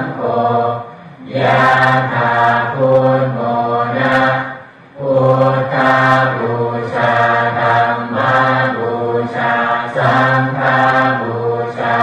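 Buddhist chanting in Pali, recited on one nearly steady pitch in long phrases, with short pauses for breath about a second in and again near five seconds.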